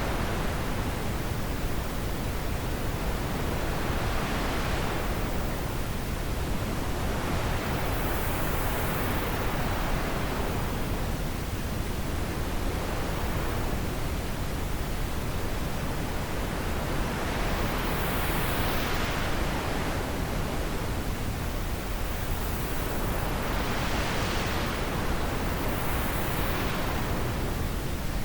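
Steady wind noise, rising and falling in slow gusts every few seconds.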